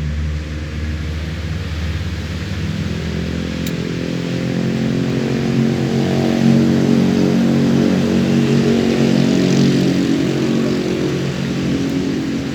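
An engine running steadily. It grows louder about halfway through, then eases off a little.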